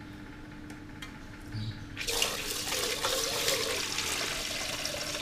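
Kitchen tap running water into a rice cooker's inner pot of rice, turned on about two seconds in and shut off at the end; the water splashes steadily as it fills the pot.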